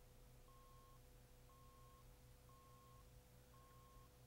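Near silence, with faint electronic beeps about once a second, each about half a second long at one steady pitch, over a faint steady hum.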